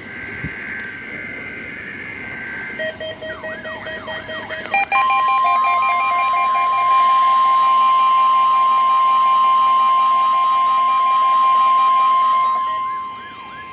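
NOAA Weather Radio test signal: a buzzy burst of SAME digital header data, then the 1050 Hz warning alarm tone, a single steady high tone held for about nine seconds. Other beeping and warbling alarm tones sound on top of it.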